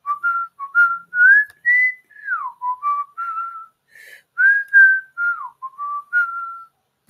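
A person whistling a short, meandering tune through the lips: a string of about a dozen clear notes, a couple of them sliding downward, stopping shortly before the end.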